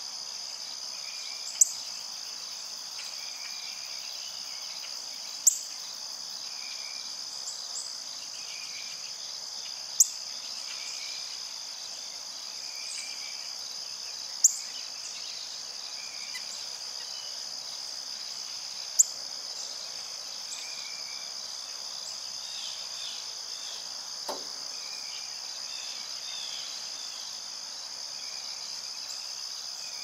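A steady chorus of crickets and other insects, a constant high trill. Short, sharp, high chips cut through it about every four to five seconds and are the loudest sounds.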